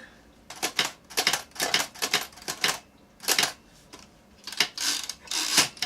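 Typewriter keys being struck by hand: irregular sharp clacks in quick runs, a short pause about halfway, then a few more strokes.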